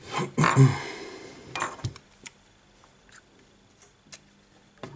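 Small smartphone parts handled by hand on a work mat: a rustle and scrape in the first second, then scattered light clicks and taps of plastic pieces.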